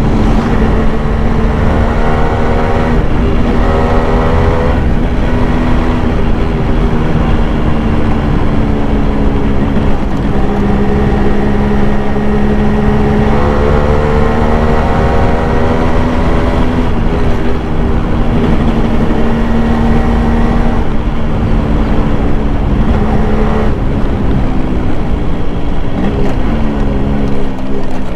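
Yamaha RX100's 98 cc two-stroke single-cylinder engine heard from onboard while riding, its pitch climbing as it accelerates through the gears a few times, about two seconds in and again midway, and falling off as it slows near the end.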